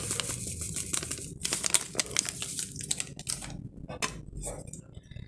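Water heating in a wok on a stove, crackling and ticking with small bubbles as ground spice paste is tipped in; the crackling thins out over the last second or two.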